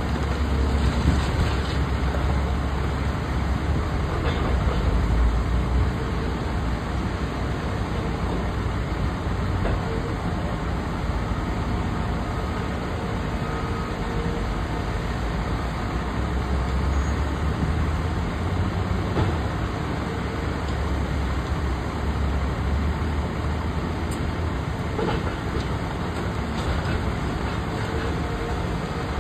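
Diesel engine of a Caterpillar high-reach demolition excavator running steadily under load as its hydraulic attachment works at a building's concrete floor slab, a continuous low rumble that swells slightly now and then.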